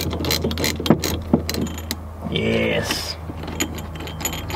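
Hand ratchet with socket clicking in short irregular runs as it spins down the 17 mm rear strut-top nut holding a strut bar bracket, over a steady low hum.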